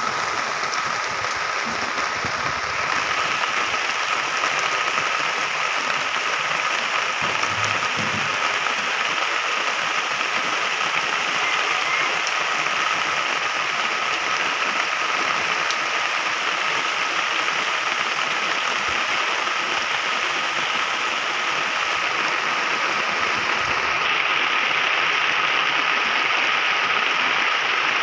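Steady rain falling on garden foliage, a continuous even hiss that grows a little louder about three seconds in and again near the end.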